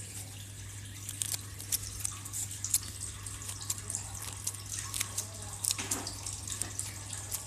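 Scissors snipping a thin foam sheet into small pieces: irregular short clicks and snips, over a steady low hum.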